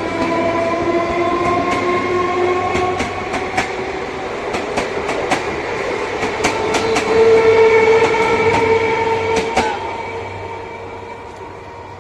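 Local train running by: quick irregular clacks of its wheels over rail joints, with a steady whine under them. It is loudest a little past halfway, then the clacks stop and the sound fades away over the last couple of seconds.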